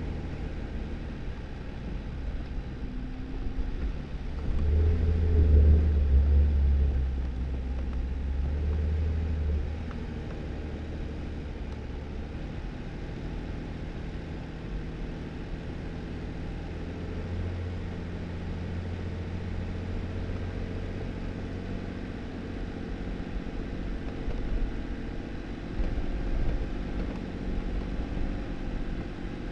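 2018 Jeep Wrangler driving on a snowy dirt road: the engine runs steadily under a low rumble of tyres, swelling louder for a few seconds about five seconds in.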